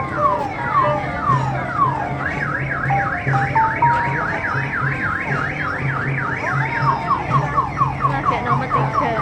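Electronic siren cycling through alarm tones. It starts with repeated falling sweeps about twice a second, switches to a fast up-and-down warble a couple of seconds in, then returns to quicker falling sweeps near the end. A low on-off pulse runs underneath.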